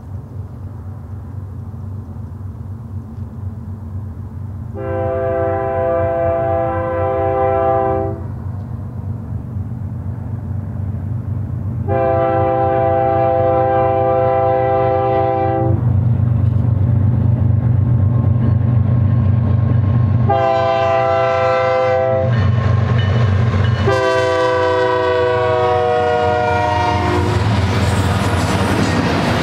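Air horn of a BNSF GE diesel locomotive sounding the grade-crossing signal: two long blasts, a short one and a long one, the last dropping in pitch as the locomotive passes. The diesel engines' rumble grows underneath, and the wheel and rail noise of double-stack container well cars rises near the end.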